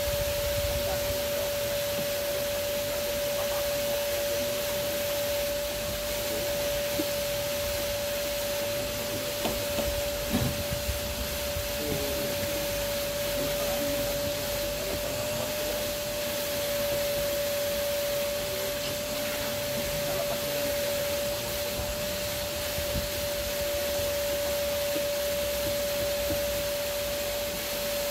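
Vacuum cleaner running steadily with a constant whine, used inside a car to clean the seats and floor; a few light knocks about a third of the way in.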